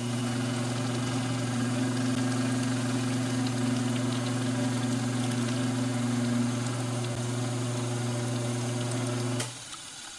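A machine's motor hums steadily at one even pitch, then switches off abruptly near the end.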